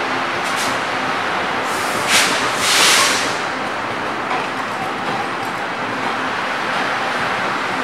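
Taiwan Railways Chu-Kuang Express passenger coaches rolling slowly past on the track, a steady rumble of wheels on rail. Two short hisses break in about 2 and 3 seconds in.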